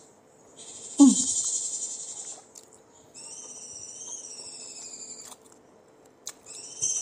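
A high, insect-like chirring in bursts, one long burst, then gliding chirps, then another burst near the end, with a short falling low sound about a second in.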